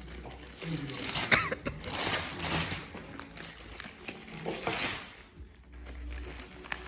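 Gift wrapping paper being torn and crumpled as a present is unwrapped, with faint voices in the background.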